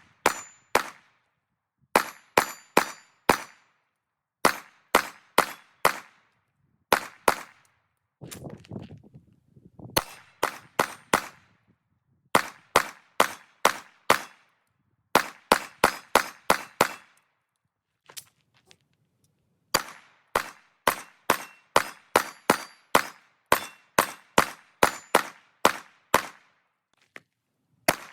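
9mm Glock pistol firing Federal 147-grain rounds in quick strings of several shots, a few shots a second, with short pauses between strings.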